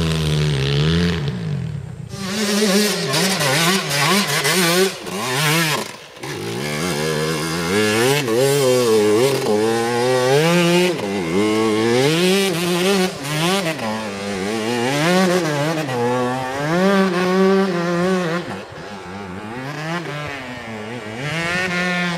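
Dirt bike engines revving hard, the pitch climbing and dropping over and over as the bikes claw up a steep grass slope with wheels spinning and throwing dirt. Music fades out in the first second or two.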